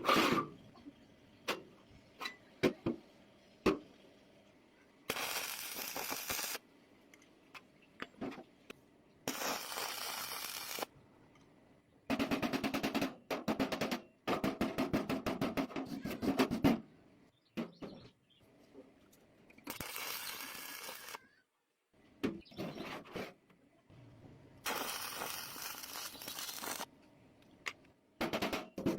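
Metalworking tools in use in short bursts: a hiss lasting a second or two comes four times, a fast rattling runs for a few seconds around the middle, and clicks and knocks fall in between.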